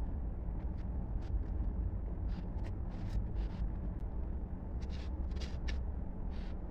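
Gloved hand pressing and rubbing gravel into wet cement around steel rods: a dozen or so short gritty scrapes and clicks, spread irregularly, over a steady low rumble.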